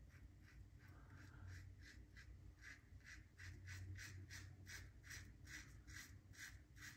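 Brass Karve Overlander safety razor scraping through lathered stubble in short, quick strokes, about three a second, faint, over a low steady hum.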